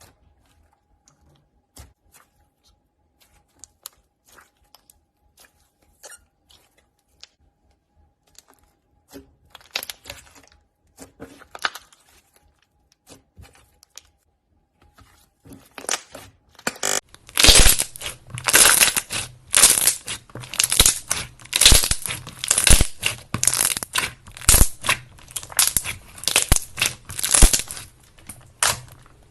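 Slime being squeezed and pressed by hand, making crackling, crunching sounds. Faint scattered clicks at first, then, a little past halfway, loud crunching squeezes repeat about twice a second.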